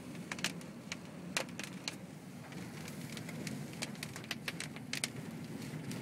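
Storm wind rushing around a truck cab, heard from inside, as a steady low rumble with irregular sharp ticks striking the vehicle.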